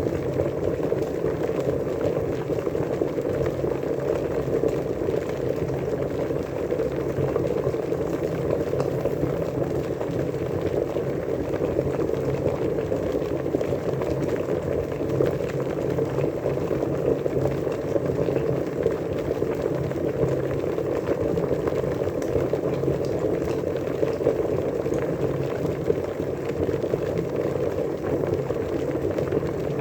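Water at a steady rolling boil, bubbling continuously and evenly.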